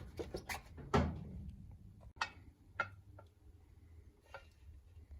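Scattered clicks and light knocks, the loudest about a second in, as a new air filter is fitted into the carburettor air filter housing of an Izh Kombi, over a low steady hum.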